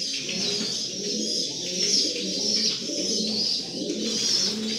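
Domestic pigeons cooing, low and overlapping.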